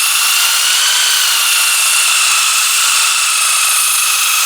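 Knife edge held against a spinning sandpaper disc, a steady grinding hiss over the even whine of the motor driving it.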